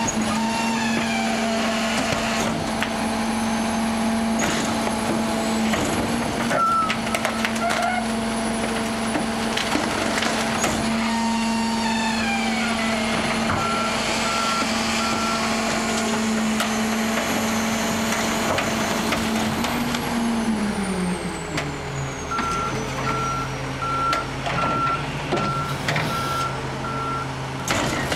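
Rear-loader garbage truck running at raised engine speed to drive its packer hydraulics, with whining as the blade cycles and cracking and crunching as furniture is compacted in the hopper. About 20 s in the engine drops to idle while an alarm beeps steadily, and it revs back up near the end.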